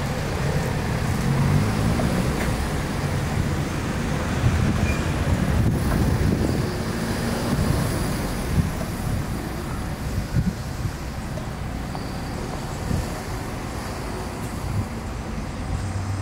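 Steady rumble of motor-vehicle traffic, with a few small knocks.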